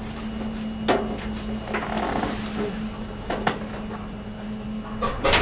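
Scattered knocks and clicks in the B-17 Flying Fortress's metal fuselage over a steady hum, which stops about five seconds in. Right at the end a loud, low noise sets in as an engine begins cranking.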